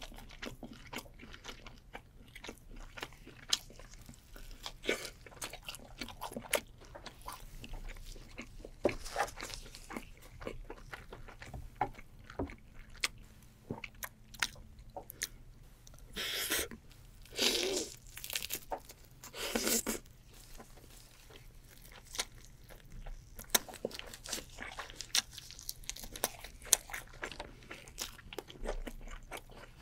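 Close-miked biting and chewing of grilled semi-dried snailfish and rice: a steady run of small mouth clicks and crunches, with a few louder, longer crunchy bursts about sixteen to twenty seconds in.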